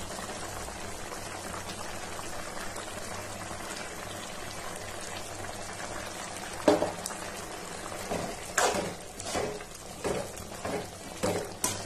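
Chicken curry simmering in a metal pan, a steady bubbling hiss. From a little past halfway, a metal ladle stirs the masala powder in, knocking and scraping against the pan several times.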